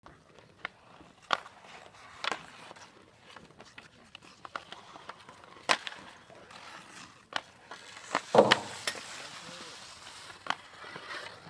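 Ice hockey sticks slapping pucks during shooting practice: sharp, single clacks spaced a second or more apart, with the loudest cluster of hits about eight seconds in.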